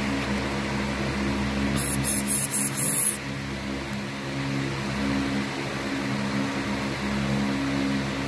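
A steady mechanical hum made of several low, level tones over a hiss, with a brief crackling high hiss about two seconds in.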